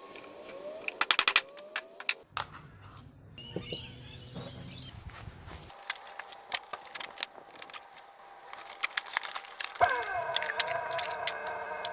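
Workshop tool sounds: a quick rattling run of sharp clicks about a second in, then scattered metallic clicks and knocks. A steady pitched whine from a running motor starts near the end.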